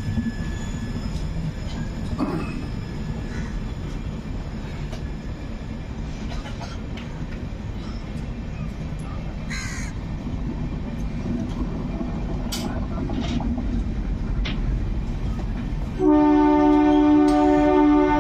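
Indian Railways LHB passenger coaches rolling past with a steady low rumble of wheels on rail, and a crow cawing briefly a few times. About sixteen seconds in, a train horn starts, loud and held on a steady chord.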